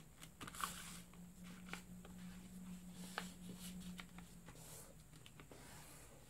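Faint rustling and light ticks of hands pressing, smoothing and creasing a folded sheet of paper on a table. A faint steady low hum runs under it and fades out about two-thirds of the way through.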